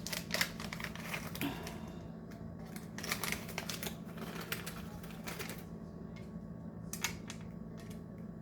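Irregular light clicking and rustling of almonds being handled and tossed with Brussels sprouts, a utensil ticking against the dish, in clusters with pauses, over a steady low hum.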